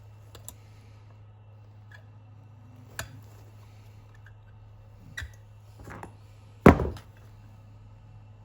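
Scattered knocks and clicks of hand-tool work on an armrest's retaining pins, about five strikes a second or more apart, the loudest a heavy thump near the end, over a steady low hum.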